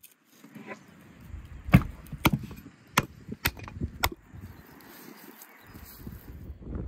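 Raw lamb being chopped on a wooden cutting board: five sharp knocks roughly half a second apart, with low rustling of the meat being handled between them.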